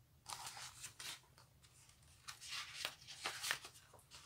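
Paper pages of a large picture book rustling and flapping as they are turned, in short bursts: a cluster in the first second, then a longer run from about halfway to near the end.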